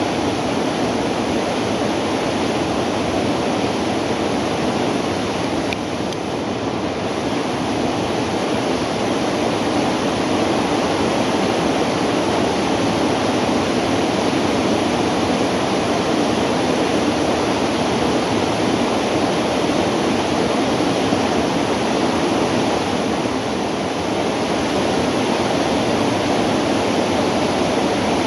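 Flowing river water rushing steadily, an even, unbroken noise.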